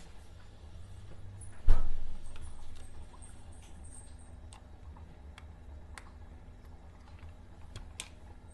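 A single sharp knock about two seconds in, the loudest sound, then a few faint, scattered light clicks over a low steady hum: kitchen things being handled.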